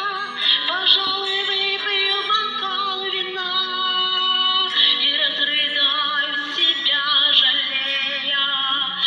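A woman singing held, wavering notes with vibrato over a steady instrumental backing: a song.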